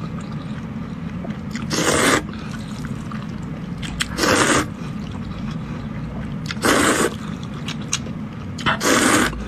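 Corn-flour noodles in zhajiang sauce being slurped: four short, loud slurps about two seconds apart, over a steady low hum.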